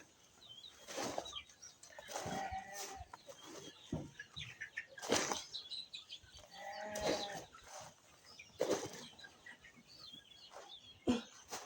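Farmyard livestock calling: two drawn-out calls about four to five seconds apart, amid sharp rustling or wing-flapping noises and faint small-bird chirps.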